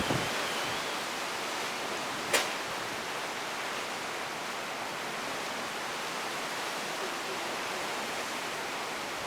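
Steady noise of hurricane wind, rain and surf, with one sharp knock about two and a half seconds in.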